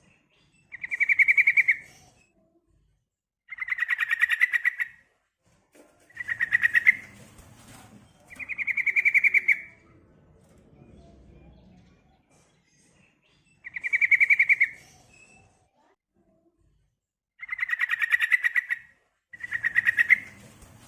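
Female yellow-vented bulbul (trucukan) calls, as used for a lure to make males answer and sing: seven short chattering bursts of rapid repeated notes, each about a second long, separated by pauses of one to four seconds.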